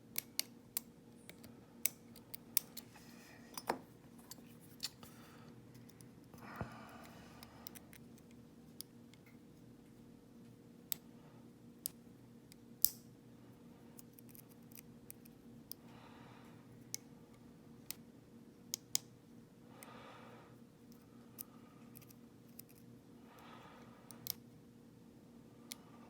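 Irregular small metallic clicks and ticks from lock picks working the pins in a padlock's core, with a few brief soft scrapes of tool on metal, over a faint steady hum.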